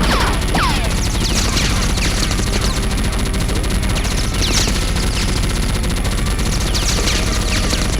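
Sustained automatic gunfire sound effects, rapid shots in continuous bursts, with several high ringing notes that fall in pitch.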